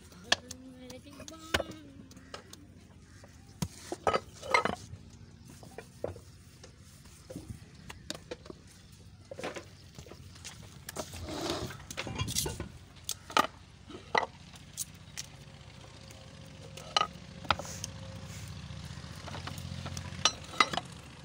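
Hand work on fresh clay roof tiles: a metal blade scraping and trimming the wet clay, with scattered sharp knocks and clatters as tiles and wooden pallets are handled.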